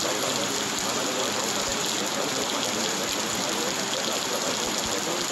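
Steady rain, an even hiss that keeps on without pause.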